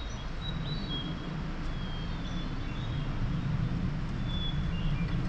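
Small backpacking canister gas stove burning with a steady low rush. Short high chirps of small birds come and go over it.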